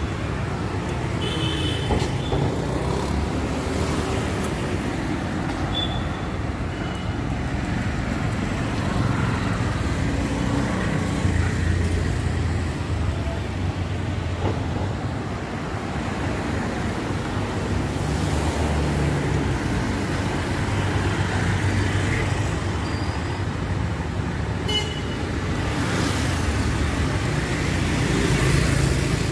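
Road traffic: a steady rumble of engines and tyres, with a few short, high vehicle horn toots, one about a second in, one about six seconds in and one near the end.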